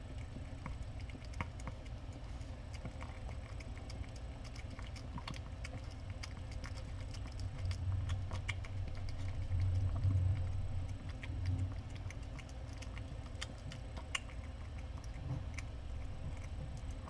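A cat eating wet food from a metal bowl: many small irregular clicks and smacks of chewing and licking, over a low steady hum.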